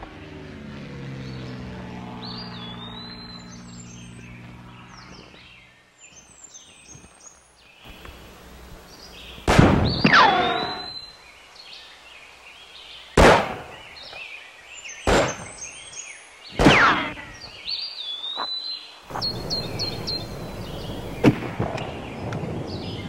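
Four loud gunshots spread over the second half, some trailed by a falling ricochet whine, over steady birdsong chirping. A low droning tone runs through the first five seconds.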